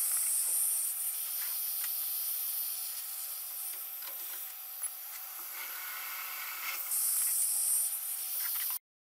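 Mini metal mill drilling a through hole in a brass bar: a steady hiss with a thin, steady whine under it, louder at the start and again about seven seconds in, and cutting off abruptly near the end.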